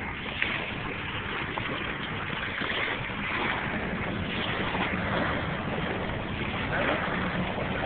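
Steady rushing noise of wind on the microphone mixed with surf.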